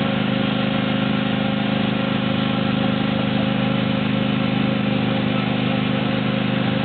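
The train ride's engine running steadily, an even drone with a slight regular pulse.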